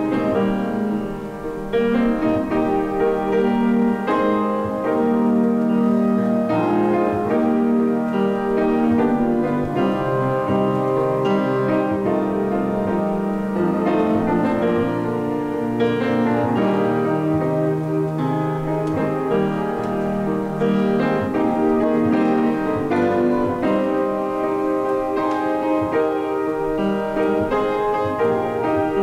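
Piano playing slow, chordal music, with sustained chords changing every second or two.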